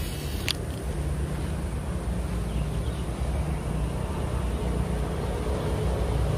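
Steady low outdoor rumble, with a single sharp click about half a second in.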